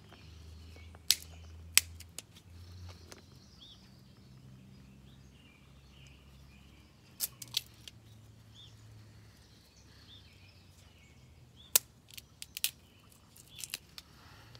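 Small sticks of dry wood cracking sharply as they are broken apart by hand, several short snaps in a few separate clusters, the loudest about a second in and near the end. Faint bird chirps and a low background rumble lie under them.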